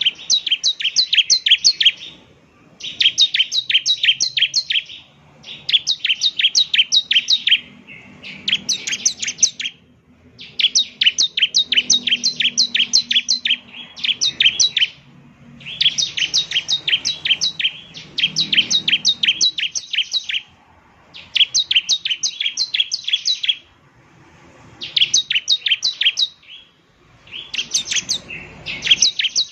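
Bar-winged prinia (ciblek, semi-crystal type) singing in repeated phrases of rapid, sharp, high chirps, about seven a second. Each phrase lasts one to three seconds, with brief pauses between them.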